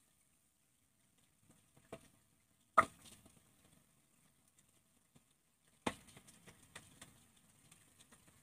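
Fish steaks being laid one at a time into hot oil in a kadhai: a few sharp knocks, the loudest about three seconds in and another near six seconds, followed by light crackling and hissing of the oil as the fish fries.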